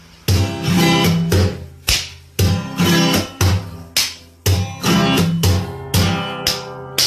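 Background music: an acoustic guitar strumming chords, about two strums a second, each chord ringing and fading before the next.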